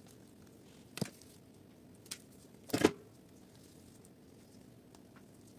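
A few short sharp clicks and one louder crackling snap just before the three-second mark, from bougainvillea stems being snipped with pruning shears and the twiggy branches handled.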